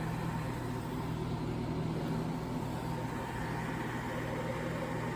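1960s Rootes Tempair portable air conditioner running, its compressor hum under the steady rush of its fans, with a faint thin tone above. Fairly quiet and even: "a quite nice sound", like a power-hungry white noise machine.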